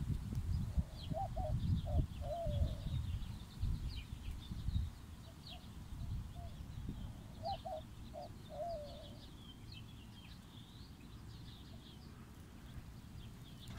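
Birds calling: a low, wavering call phrase comes twice, about six seconds apart, over scattered short high chirps. A gusty low rumble of wind on the microphone is strongest in the first few seconds.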